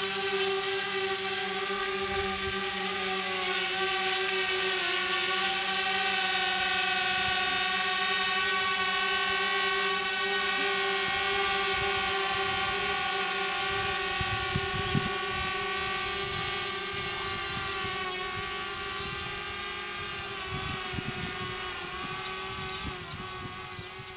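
Small quadcopter drone's propellers buzzing at a steady pitch as it lifts off and climbs away, the sound slowly fading over the second half as it gains height.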